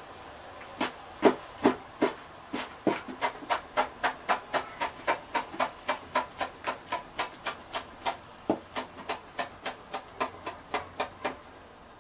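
Chef's knife slicing rolled perilla leaves into thin strips on a plastic cutting board: a steady run of knife taps on the board, about three a second, starting about a second in.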